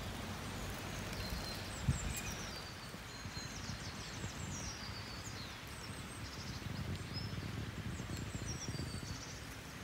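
Woodland ambience: small birds chirping and calling high, over a low rumble, with a single thump about two seconds in.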